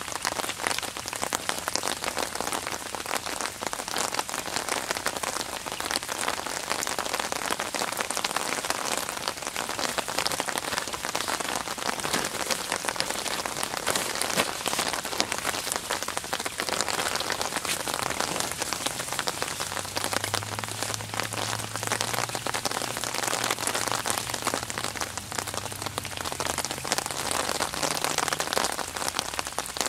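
Steady rain falling on open water: a dense, even patter of many small drops hitting the surface.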